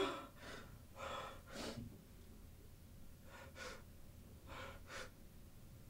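A man breathing hard in distress: short, shaky gasps in pairs, the first the loudest.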